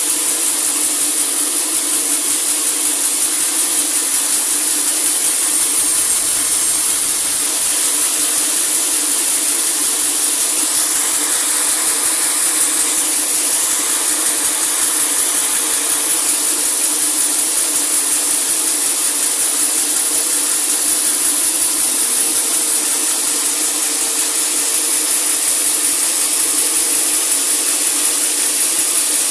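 Sawmill saw cutting through a large teak log: a loud, steady, unbroken hiss with a constant hum beneath it.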